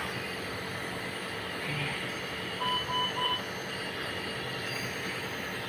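An electronic device beeps three times in quick succession, short beeps all at one pitch, over a steady background hum.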